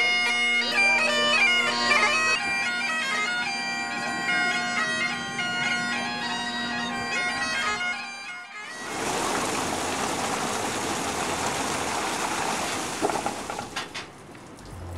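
Bagpipes playing a tune over a steady drone for about eight seconds, then cut off abruptly. A steady rushing hiss without any pitch follows, dying away about a second before the end.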